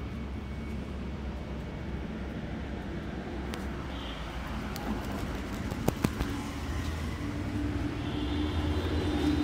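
Steady low rumble of road traffic, with a few sharp clicks about six seconds in.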